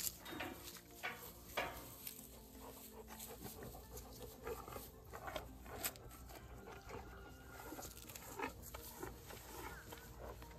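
Faint sounds of a farm animal being fed a snack: scattered short noises at irregular intervals, with a few louder ones.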